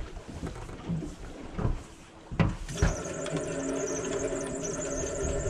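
Fishing-boat machinery: a sharp knock about halfway through, then a steady mechanical whine with several fixed pitches that carries on.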